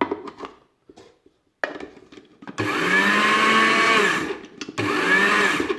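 Small electric motor of a repaired Moulinex grinder run in two short bursts, each with a whine that rises as it spins up and sinks as it winds down. A few handling clicks come first; the motor starts about two and a half seconds in, and it is running freely, its motor sound.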